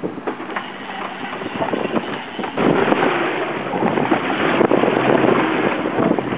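Wind buffeting the microphone over the running noise of a boat at sea, a dense rushing crackle that gets louder about two and a half seconds in.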